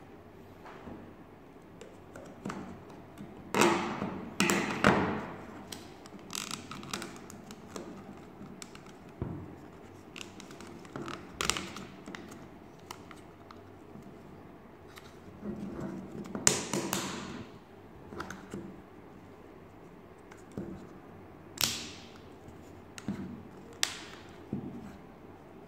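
Laser-cut plywood parts of a UGEARS Wolf-01 model pistol being handled and pressed together: irregular taps, clicks and short scrapes of wood on wood, a few of them louder.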